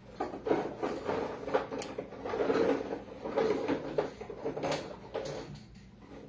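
Rummaging through things: irregular knocks, clatter and rustling as objects are moved and handled during a search.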